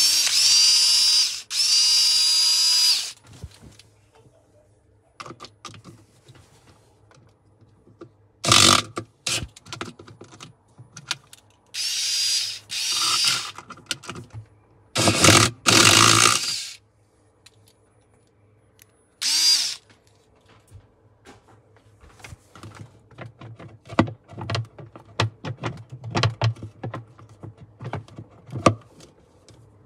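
Power tool motor whirring in several short bursts of a second or a few seconds, with clicks and knocks in between.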